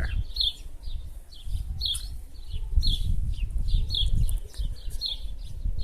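A bird chirping repeatedly, short high chirps about two a second, over a steady low rumble.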